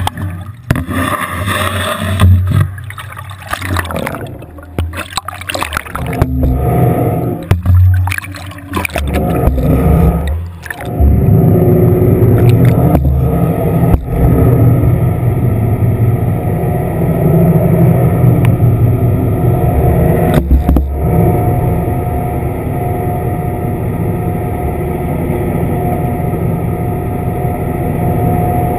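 Water sloshing and bubbling against an underwater camera housing on a fish-stocking canister, with irregular knocks and surges as it moves through turbulent water. About eleven seconds in, this settles into a steady low underwater rumble with a faint constant hum.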